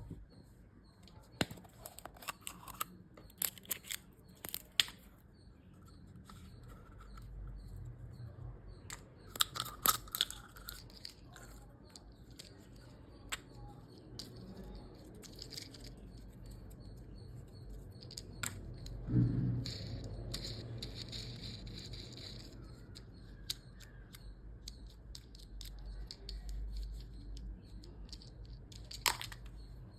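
Hands unwrapping candy packaging: plastic wrappers crinkling and tearing, with scattered small clicks and taps of plastic toy-candy cases. A duller knock comes about two-thirds of the way in, followed by a couple of seconds of crackling wrapper.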